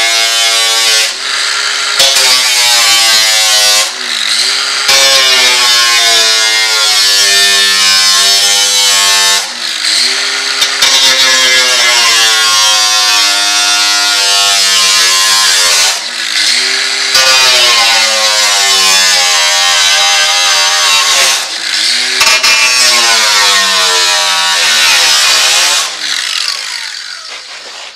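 Angle grinder with a cut-off disc cutting slots in a car's sheet-metal body panel. The motor's whine sags in pitch as the disc bites into the metal and climbs back between cuts, several times over, then winds down near the end.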